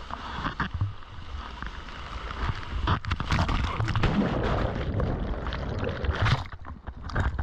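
Ocean water rushing and hissing past a surfboard as a wave is ridden. About three seconds in the surfer wipes out and the microphone is dunked in breaking whitewater: a louder, churning, muffled rush with knocks and bumps.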